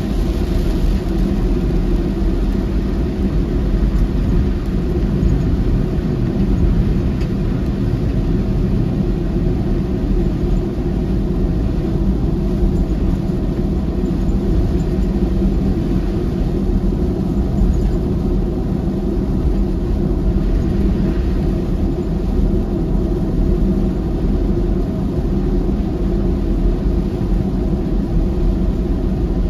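Steady low road and engine rumble heard inside a moving car, driving on a rain-soaked road.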